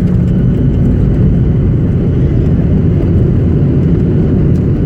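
Steady loud low rumble of a Boeing 737's engines and airflow heard from inside the cabin on final approach, with no distinct thuds or changes.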